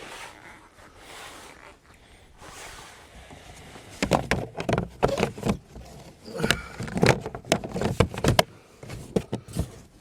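Quiet background at first, then from about four seconds in a busy run of knocks and clatter as gear is handled, moved and set down.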